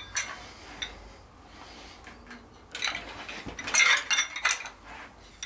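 Metal tools and small metal parts clinking and rattling in a few short bursts, busiest about three to four and a half seconds in.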